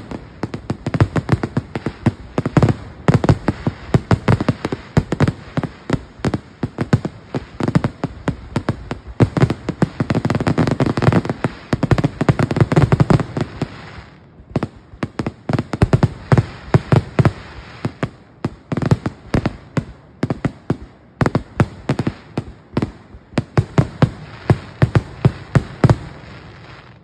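Aerial firework shells bursting in a rapid barrage: dozens of bangs in quick succession, densest about halfway through with a continuous rumble, easing briefly, then coming fast again until they stop just before the end.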